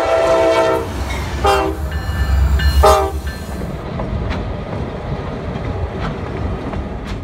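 Diesel locomotive air horn sounding at a grade crossing: a long chord, then shorter blasts about 1.5 and 3 seconds in, over the deep rumble of the passing train. About 4 seconds in the horn gives way to the steady rumble of GMTX diesel locomotives passing, with a few sharp clicks from the wheels.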